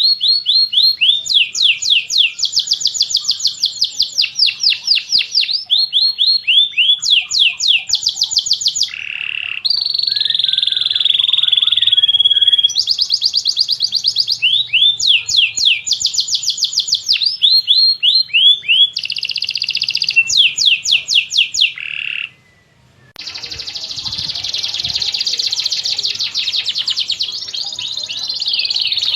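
Domestic canary singing a long song: fast trills of quickly repeated sweeping notes with a held whistle partway through. After a brief pause about 22 seconds in, it goes into a dense, unbroken warble.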